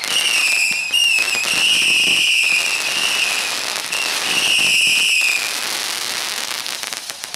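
Whistling firework barrage going off: a run of shrill whistles, each about a second long and wavering slightly in pitch, over crackling and sharp pops. The whistles stop about two thirds of the way through, leaving a fading hiss.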